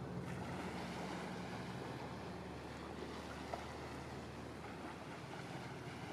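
Small motorboat under way: a steady low engine hum, easing somewhat a little under halfway through, with water washing along the hull. A single sharp tick about three and a half seconds in.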